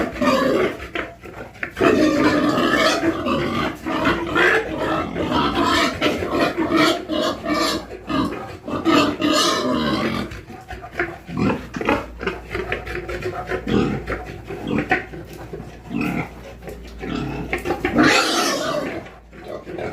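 Pigs in a pen calling and grunting, several at once, busiest in the first half. Near the end there is one loud, high call.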